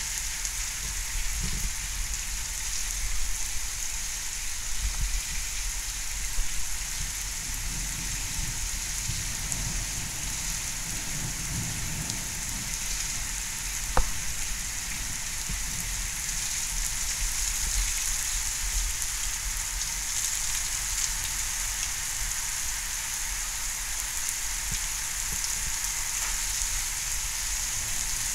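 Heavy storm rain pouring steadily: an even hiss, with a low rumble that swells and fades underneath and one sharp tap about halfway through.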